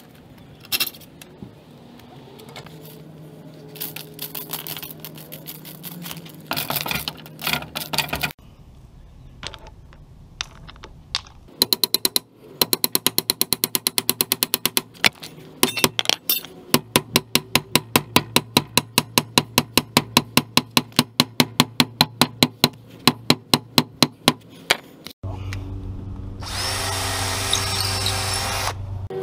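Cordless DeWalt power tools fastening into a steel fence post bracket: a run of sharp, evenly spaced rattling strokes, about four or five a second, through the middle, then a drill motor running steadily and loudly near the end.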